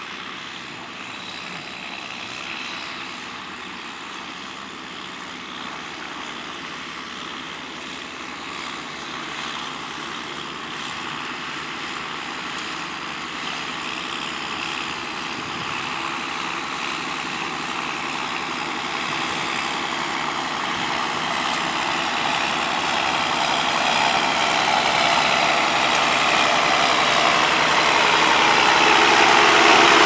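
Two tractors, a John Deere 6620 and a New Holland TM120, with their diesel engines working under load as they pull ploughs, growing steadily louder as they draw near.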